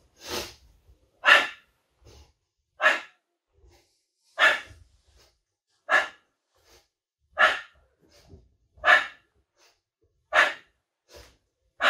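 A man's sharp exhalations during abdominal crunches, a short breath out about every second and a half, each one on the rise of a crunch.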